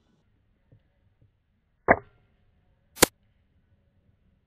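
Two single airsoft gun shots about a second apart: first a duller pop, then a sharp, bright crack. A couple of faint ticks come before them.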